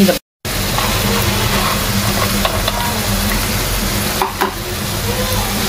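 Diced bottle gourd and tomato frying in oil in a non-stick kadai, with a steady sizzle as a spoon stirs and scrapes through it. There are a few sharp spoon knocks about four seconds in, and the sound cuts out completely for a moment just after the start.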